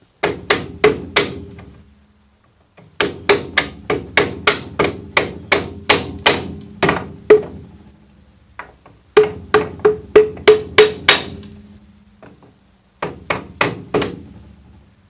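Hammer tapping the main spindle of a 1940s Sheldon lathe through its headstock, in four quick runs of blows about three a second, each blow with a short metallic ring.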